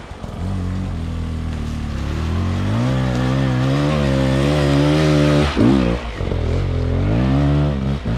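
Enduro motorcycle engine revving hard on a steep hill climb, its pitch climbing with the throttle and breaking off briefly in quick blips as the rider works the throttle.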